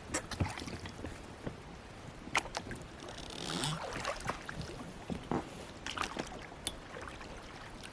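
Irregular knocks and clicks, a few louder than the rest, with a brief swishing rush of noise about three and a half seconds in.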